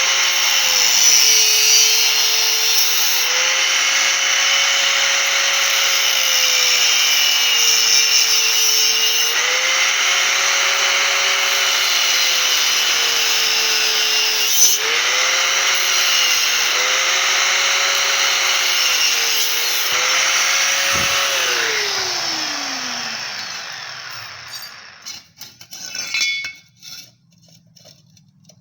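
A power tool's abrasive cutting disc cuts through square steel pipe. The motor whine sags each time the disc bites and recovers as the load eases. Near the end the tool is switched off and its whine falls away as the disc spins down, followed by a few light clatters.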